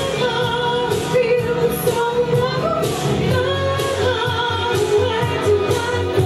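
A woman singing a pop song over a loud karaoke backing track with drums.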